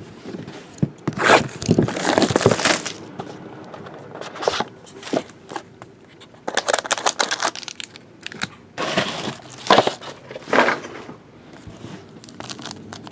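Plastic-foil trading card pack wrappers being torn open and crinkled by hand, in irregular rustling bursts with quieter gaps between.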